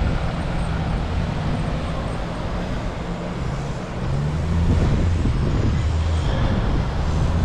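Nissan Patrol 4WD engine running as the vehicle drives off under load, towing a trailer; the engine note drops lower and gets louder about halfway through as it works harder.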